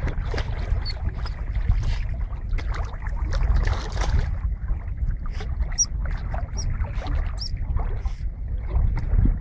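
Golden retriever wading and splashing through shallow water in irregular sloshes, over a steady low rumble of wind on the microphone.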